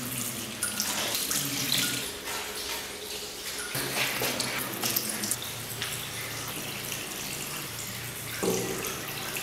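Bathroom sink tap running, the stream splashing over hands being washed beneath it and draining into the basin.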